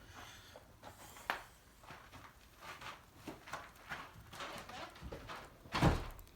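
Faint, irregular crackles and light knocks at a coal forge being lit, with newspaper kindling burning on the coke, and one louder low thump near the end.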